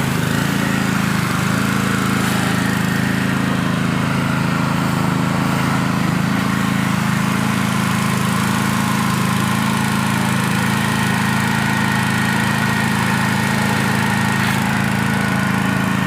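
Small engine-driven plunger-pump pressure washer running steadily at an even speed.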